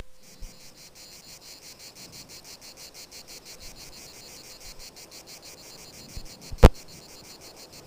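Steady, rapid insect chirping, high-pitched and pulsing evenly, with one sharp click a little past six seconds in.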